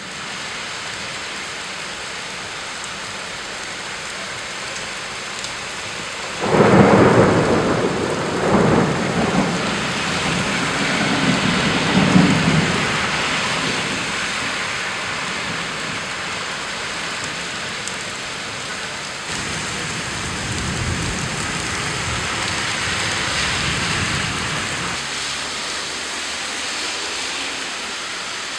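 Heavy rain falling steadily, with a loud clap of thunder about six seconds in that rumbles on for several seconds, swelling twice more before dying back into the rain.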